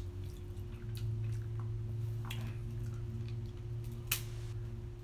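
A person chewing crab meat with wet lip-smacking, scattered small clicks and one sharp click about four seconds in, over a steady low hum.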